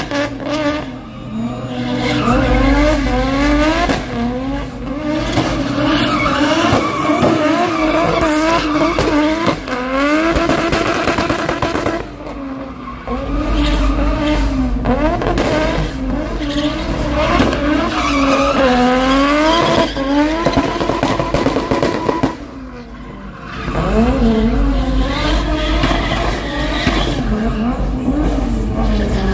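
Drift car engine revving hard, its pitch rising and falling over and over, with tyres screeching and sliding as the car drifts. The sound eases briefly twice, then picks up again.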